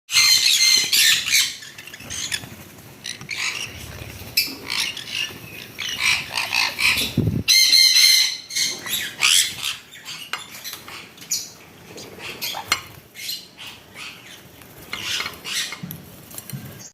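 Conures squawking and calling with shrill, high-pitched calls, loudest right at the start and again about eight seconds in.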